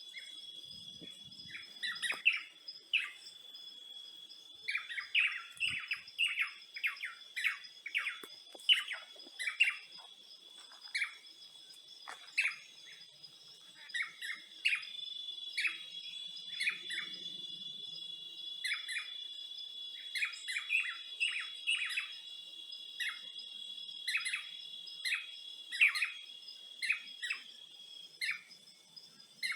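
Birds chirping in many short, quick calls, over a steady, high-pitched insect trill that runs without a break.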